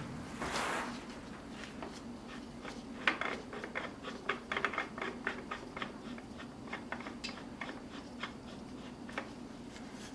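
Irregular small clicks and rattles of metal and plastic parts being handled as a golf caddy's umbrella holder is unscrewed and taken off, with a brief rustle near the start and a flurry of clicks in the middle, over a faint steady hum.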